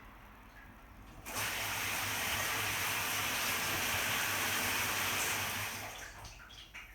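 Shower water spraying, switched on abruptly about a second in and dying away near the end.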